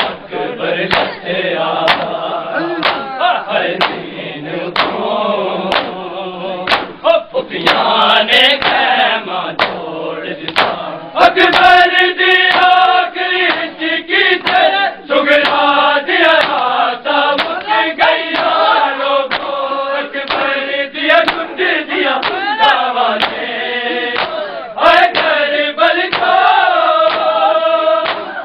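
A group of men chanting a Punjabi noha (Shia lament) in chorus, with regular sharp slaps keeping time: the chest-beating (matam) of the mourners.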